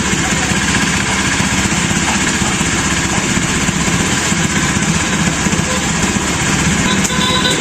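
Electric arc welding: a steady, continuous crackle with a low hum underneath.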